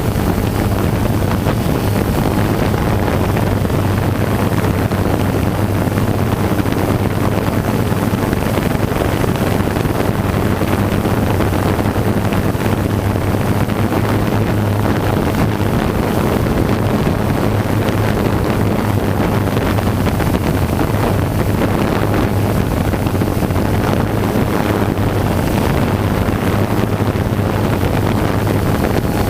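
Steady hum of a camera drone's motors and propellers in flight, over a wash of wind noise on the microphone.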